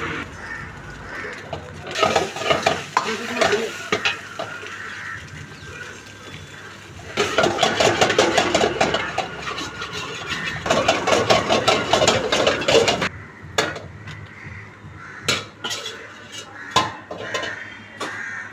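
A utensil stirring and tossing noodles in a metal pan, clattering and scraping against it in two long spells, then a few separate knocks near the end.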